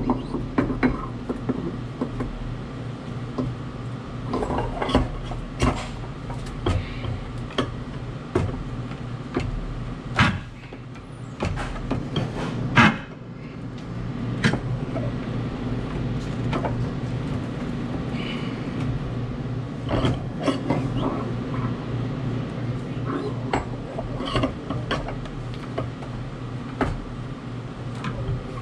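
Scattered clicks and knocks of metal parts being handled and fitted onto an ice machine's auger assembly. Two sharper knocks come about ten and thirteen seconds in, over a steady low hum.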